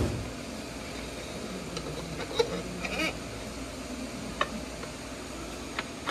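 Motorcycle fork tube being slid up through aluminium triple clamps, the lower clamp spread with a screwdriver: scattered light metal clicks and scrapes, with a couple of short squeaks about halfway.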